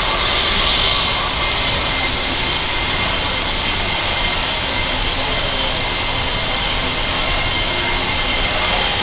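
A loud, steady hiss with a faint whine in it, starting suddenly and running on without a break.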